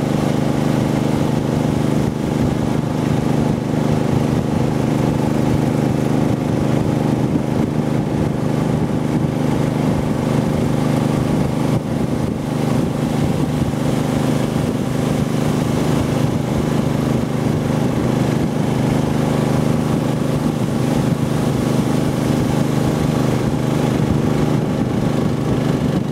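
Boat engine running steadily at full throttle.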